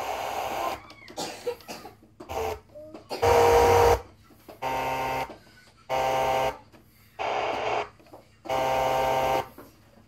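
Victor RD-MD5 boombox's FM tuner stepping between stations: about six short snatches of radio sound, hiss and buzzy tones, each under a second, with quiet gaps between as the frequency changes.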